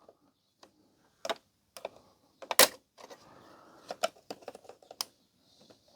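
Scattered plastic clicks and taps as the clipped-on cover of a Blu-ray player is pried and worked loose, with one sharper click about two and a half seconds in.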